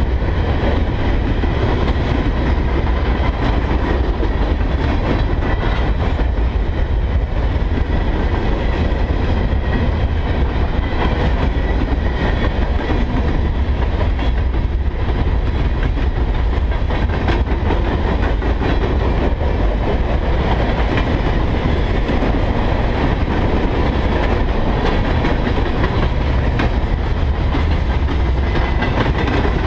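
Freight cars of a long train rolling past on steel rails: a steady, unbroken rumble and rattle of wheels on the track, with some clickety-clack.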